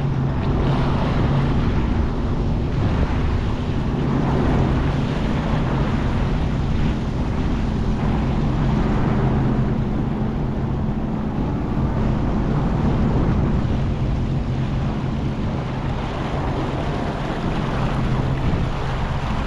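Sea-Doo GTX 230 personal watercraft engine running steadily with a low, even hum, over the rush of water and wind on the microphone.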